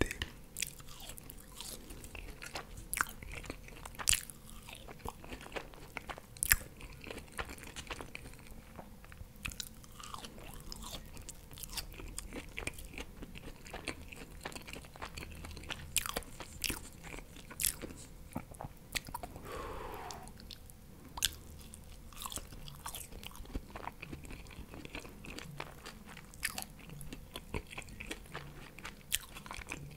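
Close-miked chewing of French fries: soft crunching and biting with sharp mouth clicks at irregular intervals.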